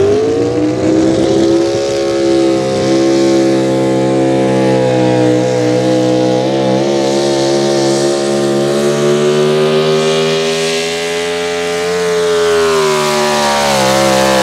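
Pro stock 4x4 pulling truck's engine at full throttle hauling the weight sled: the revs climb as it launches, then hold a high, steady note with small wobbles, and the pitch sags a little near the end.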